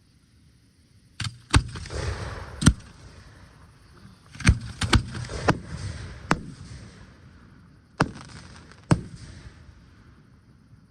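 Aerial firework shells bursting: about ten sharp bangs at uneven intervals, several of them followed by a crackling hiss that fades over a second or two.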